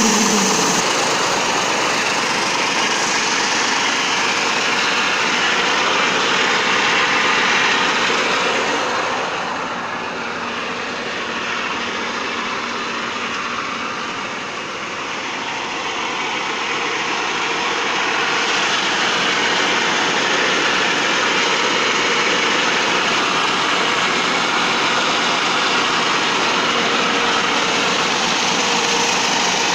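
T-150 tractor's diesel engine running steadily, freshly rebuilt after a major overhaul, easing off somewhat for several seconds in the middle before coming back up.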